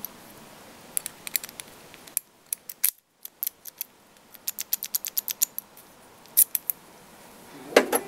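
Sharp little metallic clicks and ticks of a brass key being handled against a lock cylinder, with a quick run of clicks a little past halfway and a louder clatter near the end.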